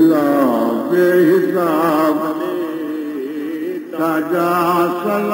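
A male voice chants an Urdu salam in the soz-khwani style, a drawn-out line that bends and wavers in pitch. A lower note is held steady beneath it for stretches.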